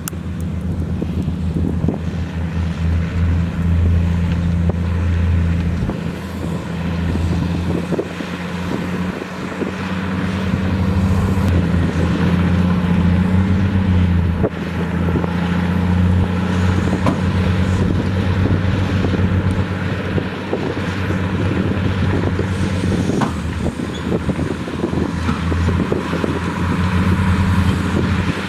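Heavy diesel engine of earthmoving equipment running steadily under load, its low drone shifting slightly in pitch now and then, with scattered faint knocks.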